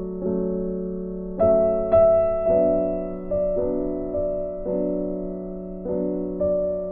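Background music: slow, soft piano chords, each struck and left to fade before the next.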